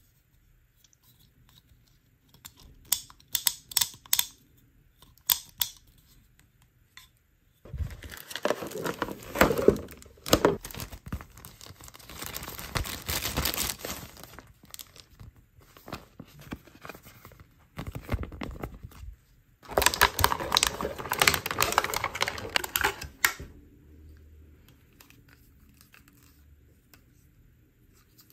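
Clear plastic packaging bags crinkling and being torn open by hand, in two long stretches of rustling and ripping. These follow a few sharp clicks.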